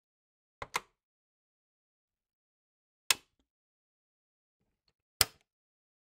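Cassette recorder stop button pressed three times. The first press is a quick double click about half a second in, followed by two single sharp clicks about two seconds apart.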